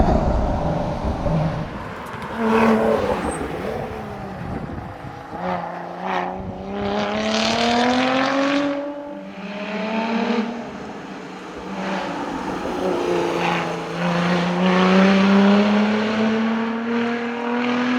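Lotus Exige Sport 410's supercharged 3.5-litre V6 pulling hard under racing acceleration. The engine note climbs in pitch several times and drops back at each gear change, with a loud hiss of noise about halfway through.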